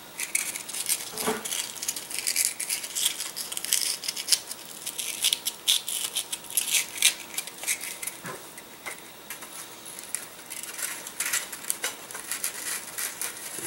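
A small piece of sandpaper crinkling and scratching in the fingers as it is rolled up into a tight tube, with a couple of light knocks.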